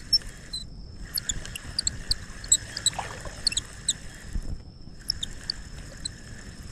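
A spinning fishing reel being cranked to bring in a hooked fish, with scattered short, high squeaks and chirps and a faint steady high whine over it.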